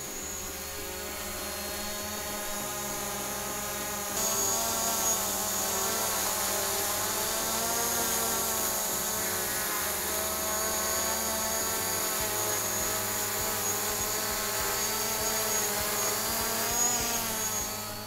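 DJI Mavic Pro quadcopter hovering, its four motors and propellers giving a steady buzzing drone with slightly wavering pitch and a high whine on top. It grows louder over the first few seconds and steps up louder about four seconds in; close underneath it reads about 97 to 100 dB.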